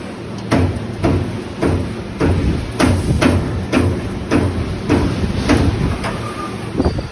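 Amada CNC punch press punching holes in galvanized steel sheet: a regular run of sharp metal strikes, about two a second, over the steady hum of the machine.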